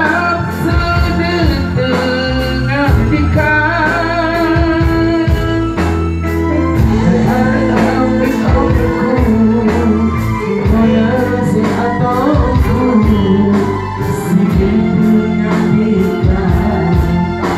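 A live band plays with singing over a PA system, the music loud and continuous over a steady beat of about two strikes a second.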